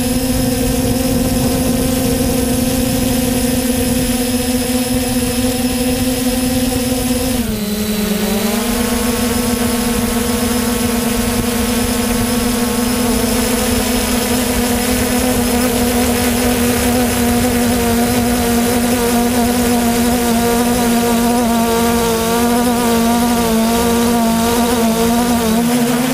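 3DR Solo quadcopter's motors and propellers running with a steady, loud hum and rushing prop-wash noise, heard from a GoPro mounted on the drone. About seven seconds in, the pitch dips for about a second and climbs back.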